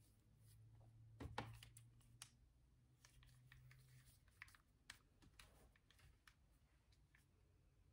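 Near silence with faint, scattered clicks and taps, and a faint low hum that stops about four seconds in.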